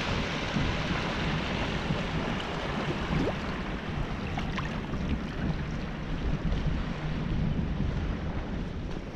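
Strong wind buffeting the microphone over the steady rush of sea waves breaking on the shore.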